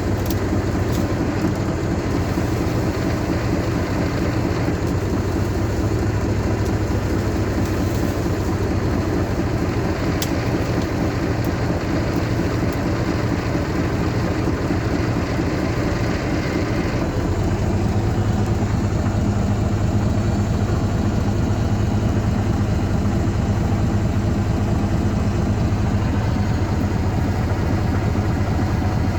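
Tractor diesel engine, the Volvo BM 350's, running steadily. About 17 seconds in its note deepens and gets a little louder.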